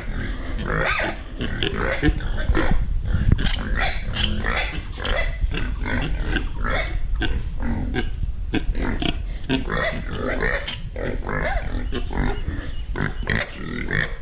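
Pigs grunting and calling, many short calls overlapping without a break, over a steady low rumble.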